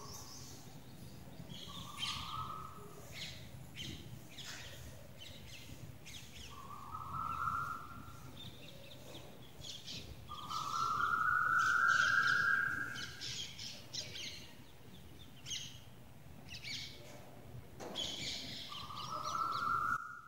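Birds calling: a clear, slightly rising note repeated about five times, the longest and loudest near the middle, with scattered higher chirps from smaller birds.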